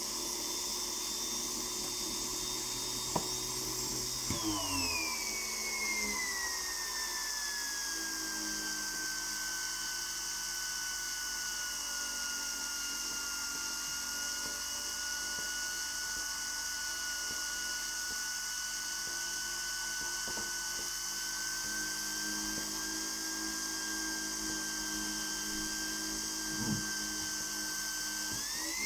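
Gintschel Tornado model steam turbine whining over a steady hiss of steam. About four seconds in its pitch drops sharply and stays low, then climbs again near the end: the turbine straining to turn the Ferris wheel, with just enough power to do it.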